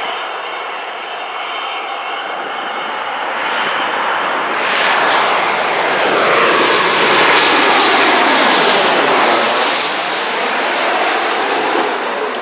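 Twin-engine jet airliner on final approach passing low overhead: its engine noise swells over a few seconds, a whine slides down in pitch as it goes over, and the sound eases off as it moves away.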